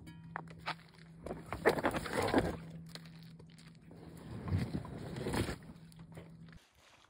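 Handling noise at an inflatable rubber dinghy on a stony shore: two bursts of rustling and scraping as the boat and gear in it are grabbed and fishing rods are lifted out, with footsteps on stones. A low steady hum sits underneath and stops near the end.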